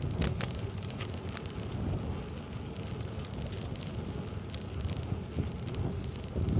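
Wind buffeting the microphone over the low rumble of bicycle tyres rolling on a concrete path, with scattered sharp clicks and crackles.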